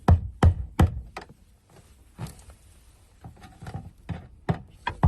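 Fuel pump lock ring on a fuel tank being knocked round to loosen it. There are three sharp knocks in the first second, then lighter scattered taps and knocks. The ring has started to turn.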